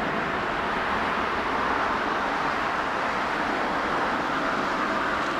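Boeing 777 freighter's twin GE90 turbofan engines at takeoff thrust during its takeoff roll: a steady rush of jet noise with a faint whine running through it.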